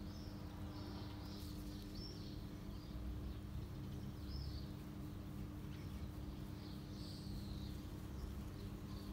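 Small birds chirping repeatedly in short high twittering phrases, over a steady low background hum.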